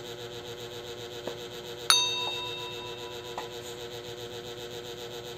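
A mop rubs across a tiled floor. About two seconds in there is a sharp metallic ding that rings briefly, with a few lighter knocks around it. A steady hum runs underneath.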